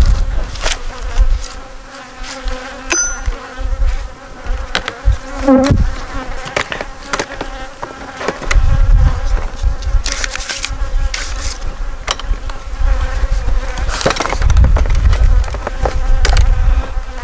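Honey bees buzzing in a steady, many-toned hum from an opened hive whose frames are crowded with bees, worked without smoke.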